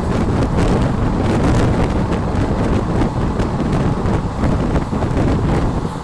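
Wind rushing over the microphone on a moving train, over the low rumble of the train running at speed.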